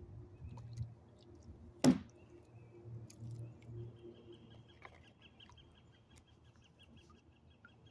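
A single sharp knock about two seconds in, the loudest sound here. From about four seconds on, a high, rapidly repeated chirping call of about five notes a second.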